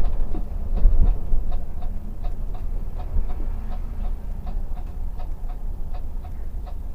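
Turn-signal indicator ticking evenly, about three ticks a second, as the Mercedes-Benz O500RS 1836 sleeper bus signals a right turn. Under it runs the low rumble of the bus's engine and tyres, heard from inside the cabin.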